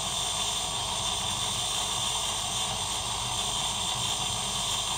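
Steady machine hum and hiss with a few high, even whining tones, unchanging throughout.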